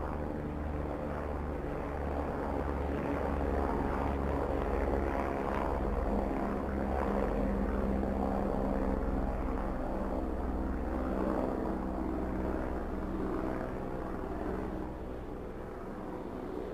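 A small electric motor spinning the plastic propeller of a homemade matchbox toy helicopter, a steady whirring hum with a fluttering rush of air. It eases off slightly near the end.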